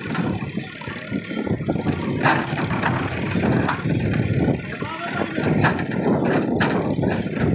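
JCB 3DX backhoe loader's diesel engine working under load as the backhoe arm is raised, with a few sharp knocks about two, five and a half and six and a half seconds in.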